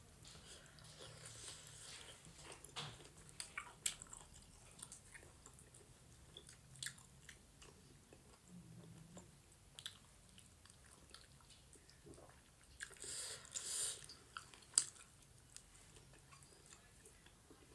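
Close-miked chewing and biting of goat meat and dhido, with scattered wet mouth clicks and a louder stretch about thirteen seconds in. The eater had called the goat meat hard.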